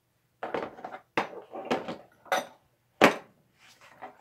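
Metal drum brake tools clinking and knocking against a hard plastic carrying case as they are handled and pulled from their slots: a run of short clatters, the sharpest knock about three seconds in.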